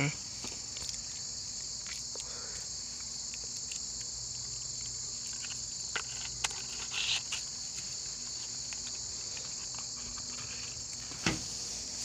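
A steady, high-pitched chorus of insects, with a few light clicks and rustles from handling a cardboard box of .22 LR cartridges and its plastic tray, the sharpest click near the end.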